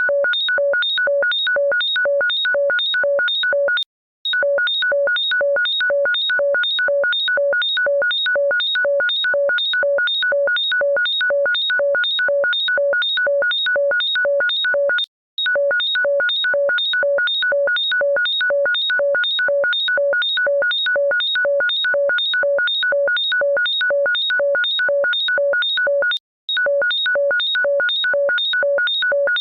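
Electronic ringtone: a loud, rapid synthesized beeping pattern, about two beeps a second, each beep sounding several tones at once. It loops over and over, with a brief break about every eleven seconds.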